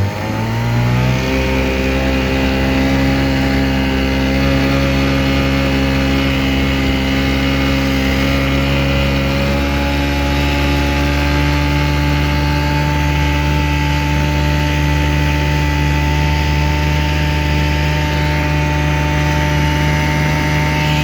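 1965 McCulloch-built Ted Williams 7.5 hp two-stroke outboard motor running under way. It picks up speed over about the first second, then holds a steady high pitch.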